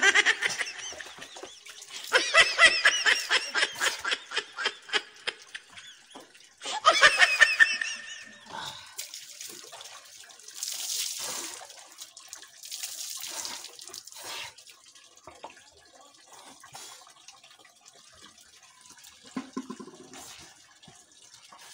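High-pitched laughter in rapid pulsing bursts, loudest in the first third. Later, two spells of water poured from a plastic dipper splashing over a bather, each a second or two long.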